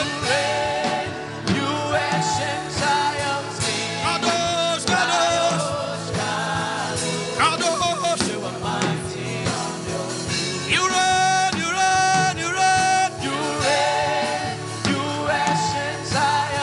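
Gospel worship music: a band with a steady beat under held, wavering sung notes.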